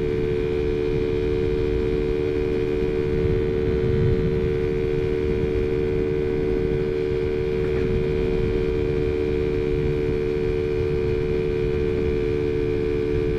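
Taotao Zummer 50cc scooter's small single-cylinder four-stroke engine running at a steady cruising speed, its pitch unchanging, with wind and road rumble on the helmet-mounted microphone.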